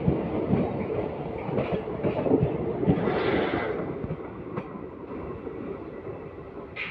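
Indian Railways ICF passenger coaches rolling past at speed, their wheels clattering over the rail joints. The sound fades as the last coach goes by and the train draws away.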